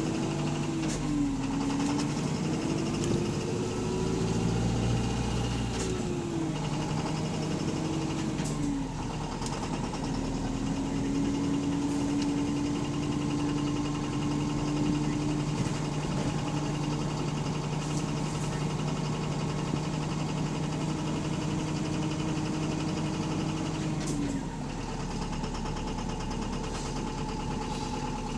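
Bus engine running with a knocking that the uploader takes for rod knock, a worn connecting-rod bearing. A tone rises and falls in pitch over the first several seconds, holds steady, then drops away about 24 seconds in.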